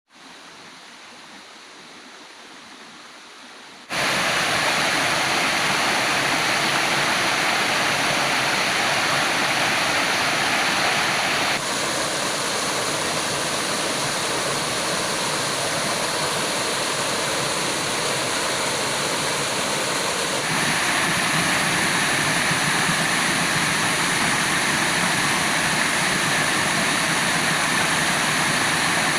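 Waterfall: a steady rush of falling water that comes in loud about four seconds in, its tone shifting slightly twice along the way.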